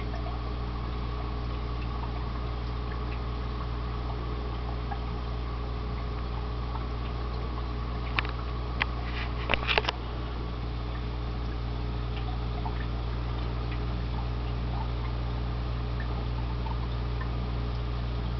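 Aquarium equipment running steadily: a constant low electric hum with bubbling, trickling water from the aeration. A few sharp clicks come about eight to ten seconds in.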